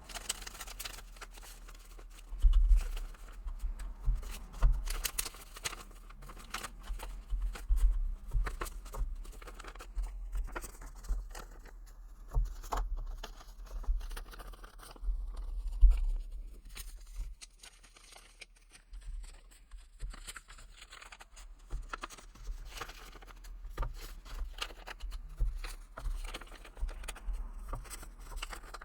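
Paper cash envelopes and banknotes rustling and crinkling as bills are pulled out and handled. There are many quick, irregular sharp paper clicks and occasional dull bumps.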